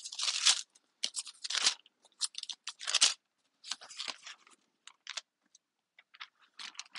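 Paper pages of a Bible being leafed through: quick, irregular rustling and flipping, with short pauses between page turns.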